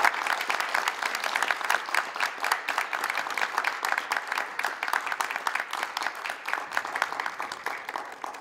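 Audience applauding, many hands clapping together; the clapping thins out near the end.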